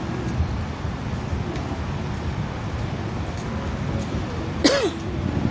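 Low, steady rumble of vehicle engines and traffic, with a short, sharp squeal that rises and falls near the end.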